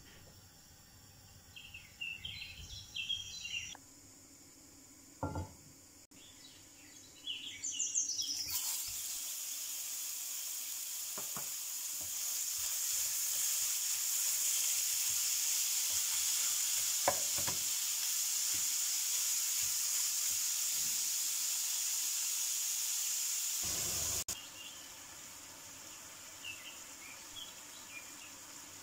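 Minced meat sizzling in a frying pan as it is stirred and broken up with a wooden spatula; the sizzle starts about a third of the way in and drops sharply about five seconds before the end. Before it, a few light metal clinks from a steamer pot and lid.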